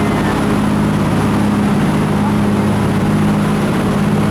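Jet boat engine running steadily at cruising speed: a constant low hum under a steady rushing noise.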